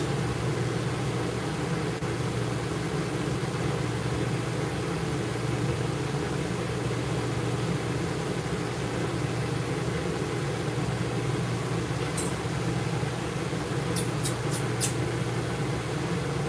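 A steady low machine hum that does not change, with a few short sharp clicks about twelve seconds in and again around fourteen to fifteen seconds in.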